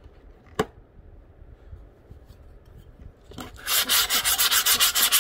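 Something rubbed quickly back and forth across the diamond-roughened glass screen of a broken phone, a fast scratchy scraping that starts about three and a half seconds in. Before it there is a single light click.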